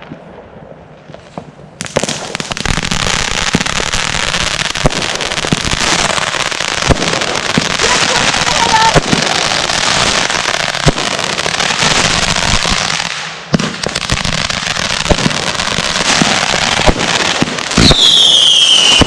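Small consumer firework going off: a loud, steady hiss full of sharp crackling pops starts about two seconds in, dips briefly, then resumes. Near the end a loud bang is followed by a whistle that falls in pitch.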